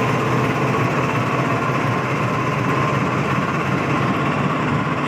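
GE GEU-40 diesel-electric locomotive idling while standing: a steady engine drone with a steady high whine over it.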